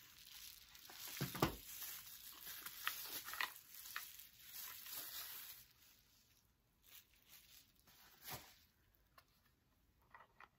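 Plastic bubble-wrap pouch crinkling and rustling as a power bank is pulled out of it, with a sharp crackle about a second and a half in. It goes much quieter after about six seconds, leaving a few light clicks.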